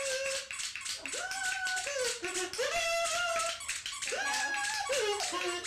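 Music: a melody of held notes that slide up and down, over a quick, even percussive rhythm.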